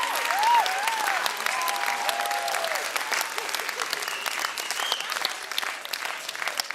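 Audience applauding, with a few brief voices or whistles in the first second; the clapping thins out toward the end.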